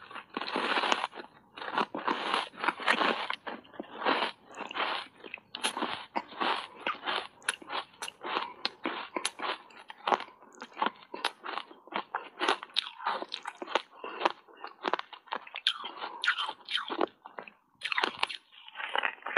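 Block ice coated in matcha powder being bitten and chewed: a dense run of sharp, rapid crunches as the ice cracks between the teeth, with fuller, longer crunching bites near the start and again near the end.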